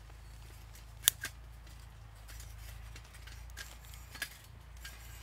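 Small split sticks of wood being dropped by hand into a small stainless-steel wood-gas camping stove. One sharp click of wood on metal comes about a second in, with a smaller one just after and a few light knocks later.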